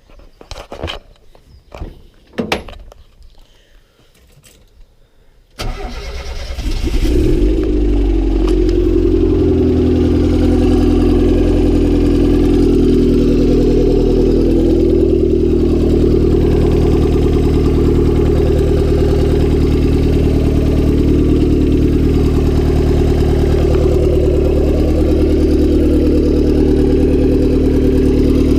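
A few knocks and clicks, then the turbocharged Honda D16Y7 single-cam four-cylinder engine starts about five and a half seconds in, revs up briefly and settles into a steady idle. The engine has a spun bearing.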